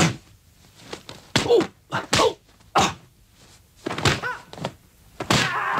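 Film fight sound effects: a series of punch and kick thwacks, about six in the few seconds, mixed with short grunts and shouts from the fighters.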